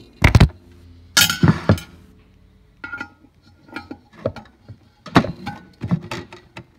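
A loud thump as the recording phone is set down, then scattered metallic clinks, knocks and a short rattle of the intake manifold's power-valve rod and butterfly valves being pressed and slid into place.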